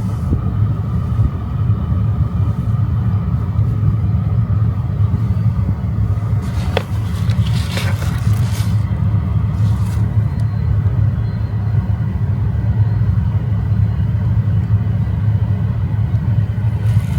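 Steady low rumble, with a couple of faint clicks near the middle.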